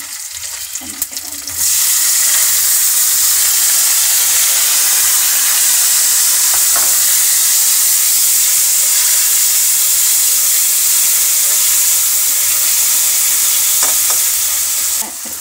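Chopped tomatoes added to hot oil and spices in a kadhai: the frying sizzle jumps sharply louder about a second and a half in, stays a loud steady hiss, and falls back near the end.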